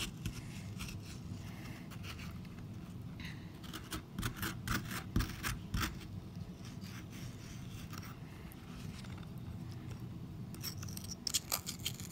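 Hand scraping and rubbing at a wet, dissolving dig-kit block in a glass baking dish of water, with a cluster of sharp scrapes and clicks about four to six seconds in and again near the end.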